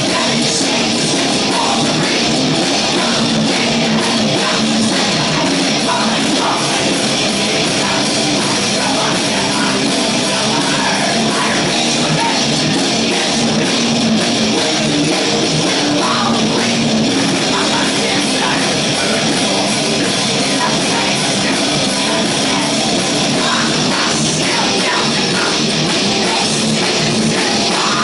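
Heavy metal band playing live: distorted electric guitars over a drum kit, loud and unbroken, with little deep bass.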